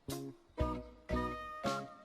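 Cartoon background music: four short pitched notes with sharp starts, about half a second apart.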